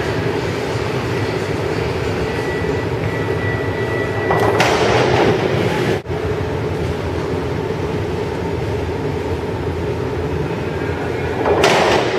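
Two divers hitting the pool water with splashes, one about four and a half seconds in and one near the end. A steady low rumble of the pool hall runs under both.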